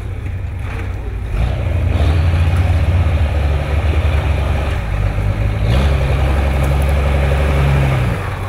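Toyota 60 Series Landcruiser winch truck's engine revving under load as it crawls over rocks. It pulls hard from about a second and a half in, eases briefly near the middle, then picks up again at a higher pitch and drops back near the end.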